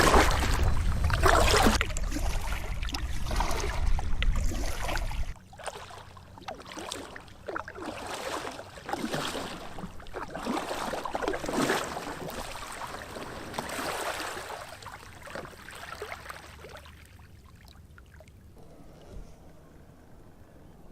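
Paddle strokes in water, splashing and dripping in a repeated rhythm that fades out near the end. A loud low rumble covers the first five seconds and then cuts off suddenly.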